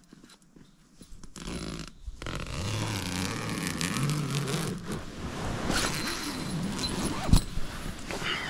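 Nylon hammock and sleeping-bag fabric rustling, with a zipper being pulled, as someone climbs out of a camping hammock. There is one sharp knock near the end.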